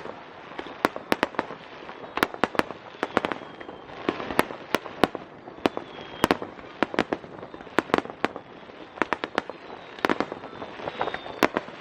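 Aerial fireworks display: a rapid, irregular run of sharp bangs and pops, often several a second, over a steady background noise.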